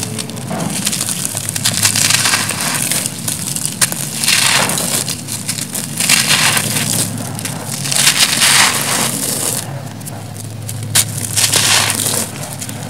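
Hands crumbling soft, dry, porous grey concrete blocks: gritty crunching, with crumbled pieces and grit falling onto a loose pile. The crunching comes in repeated waves, about every two seconds.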